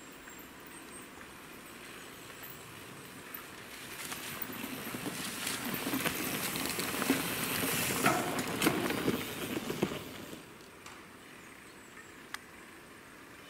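Mountain bikes rolling down a dirt forest trail and passing close by: the rush of tyres on the ground swells, is loudest for a few seconds with sharp clicks and rattles, then fades away.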